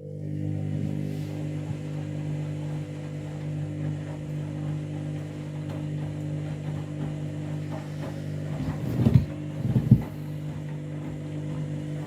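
Front-loading washing machine running with a steady, even machine hum at the end of its main wash cycle, with two sharp knocks about 9 and 10 seconds in.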